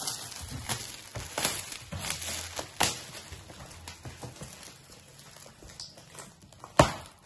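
Metallic foil gift wrap crinkling and rustling as it is pulled off and a cardboard gift box is opened, in a run of irregular crackles, with one sharp snap near the end.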